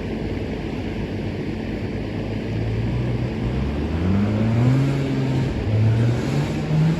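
Mazda RX-7's 12A rotary engine through a Racing Beat exhaust, running steadily at first, then revving from about two and a half seconds in, its pitch rising and dropping several times.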